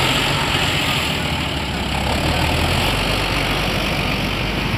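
Intercity coach's diesel engine running close by as the bus rolls slowly past and pulls away.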